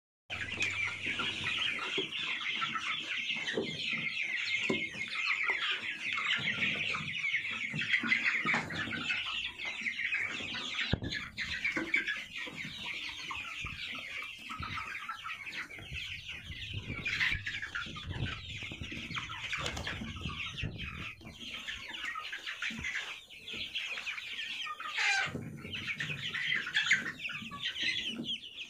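A crowded flock of month-old Sonali chicks peeping and clucking without a break, a dense high-pitched chorus, with a few brief knocks.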